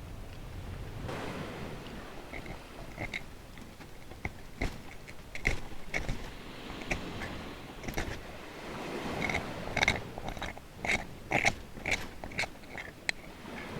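A person eating risotto: chewing and small mouth sounds, with scattered sharp clicks that come more often in the second half. Surf washes on in the background.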